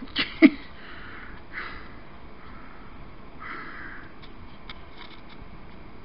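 Two sharp knocks right at the start, then a man sniffing twice, close to the microphone. A few light clicks follow near the end.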